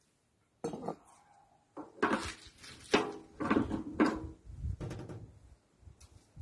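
Irregular metallic clanks and knocks with a little ringing from a Lister SR3 three-cylinder diesel being worked by hand at its starting end. The clanks are loudest in the middle, with no steady beat of the engine running.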